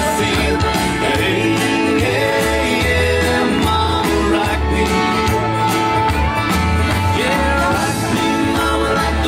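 Country music with a steady beat, a singing voice and guitar.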